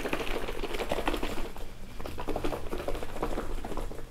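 Lidded plastic container of chia seeds and almond milk shaken hard by hand: quick, continuous sloshing and pattering of the liquid against the lid and walls.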